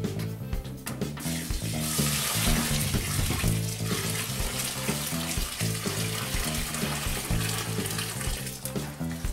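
Hot strike water pouring from a pot onto crushed malt in a plastic bucket mash tun, over background music.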